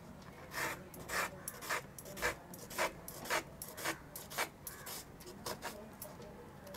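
Small kitchen knife slicing a red onion on a wooden cutting board: about ten cuts, roughly two a second, each stroke ending with the blade meeting the board.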